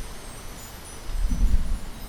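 Wind buffeting the microphone: a low rumble that swells briefly about a second and a half in, with faint, short high-pitched tones above it.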